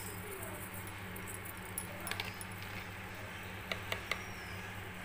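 A few faint light clicks and taps, about two seconds in and again near the end, from a spoon against a stainless steel bowl as salt is sprinkled over fish steaks, over a steady low hum.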